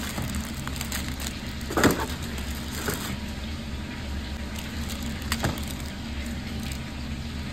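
Crinkling and rustling of wrapping paper and an aluminium foil takeaway tray as fresh spring rolls are wrapped and packed, over a steady low hum. A few short crackles stand out, the loudest about two seconds in.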